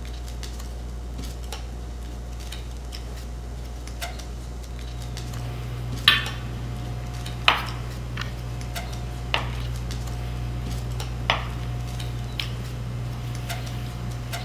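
Balsamic vinegar at a full boil in a wide sauté pan, reducing down: scattered pops and clicks over a steady low hum, with a faint whine that comes and goes. The sharpest pops come about six and seven and a half seconds in.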